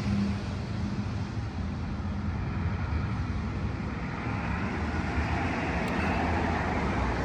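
Steady traffic on a busy main road: cars going past one after another, their noise swelling and easing as each passes.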